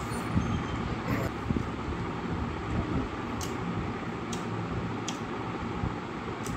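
Steady background hum, with a few soft clicks as fingers mix rice on a plate.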